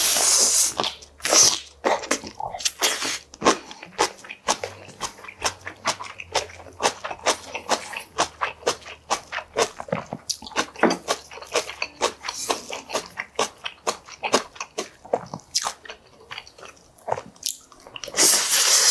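Close-miked mouth sounds of a man chewing beef short-rib meat and rice: a dense, irregular run of wet smacks and clicks, with louder bites at the start and near the end.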